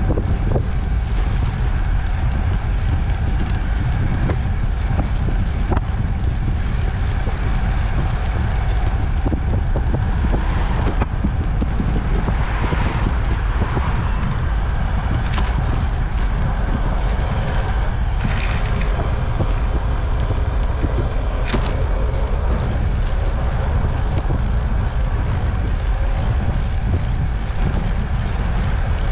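Wind buffeting the microphone over the steady rolling rumble of a recumbent trike riding along an asphalt road. A few short, high sounds come through about halfway in.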